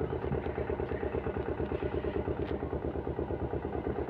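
A small engine running steadily at idle with an even, rapid beat.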